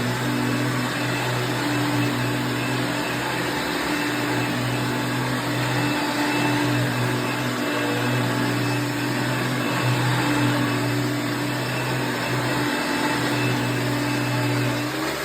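A 1994 Dirt Devil Plus soft-bag upright vacuum cleaner running steadily: a constant motor hum over a rush of air.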